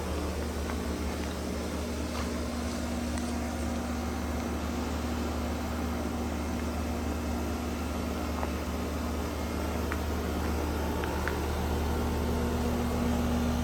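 2009 Tempstar air conditioner running: a steady mechanical hum with a low drone and fan noise, a few faint ticks, growing slightly louder near the end.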